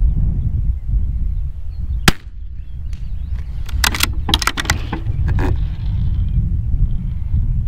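Wind buffeting the microphone with a steady low rumble. About two seconds in comes a single sharp crack, a .22 LR rifle shot in a slow-firing group, followed between about four and five and a half seconds by a few fainter clicks and cracks.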